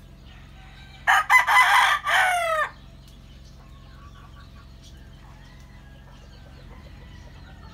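A rooster crows once, a loud call of about a second and a half that drops in pitch at its end.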